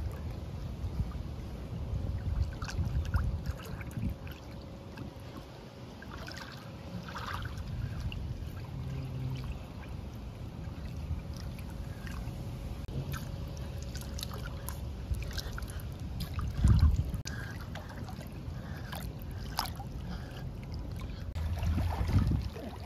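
Swimming-pool water lapping and splashing gently around an inflatable baby float, with scattered small splashes over a low rumble. One louder low thump comes about two-thirds of the way through.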